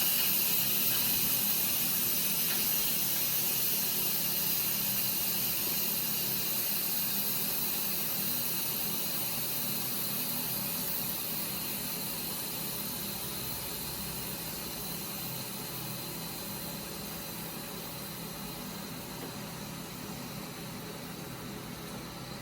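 Steam venting through an Instant Pot's pressure-release valve as the remaining pressure is let out after a short natural release: a steady hiss that slowly fades as the pressure drops.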